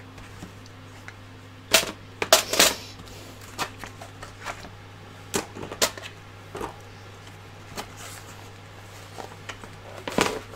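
Hands handling a bundle of 3D-printer wires and a cable sleeve: irregular rustles and sharp clicks of the wires and sleeve rubbing and tapping, loudest about two seconds in and again near the end, over a steady low hum.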